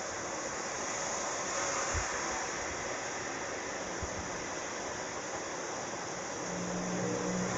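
Steady hiss-like noise, with a couple of faint low thumps and faint steady tones coming in near the end.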